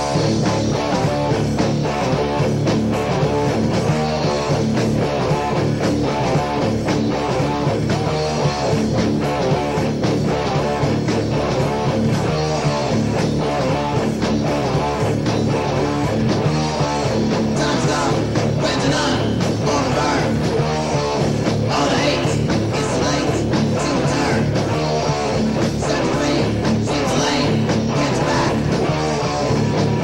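Guitar-driven rock band playing, from a 1987 demo cassette recording, with a high melodic line coming in a little past halfway.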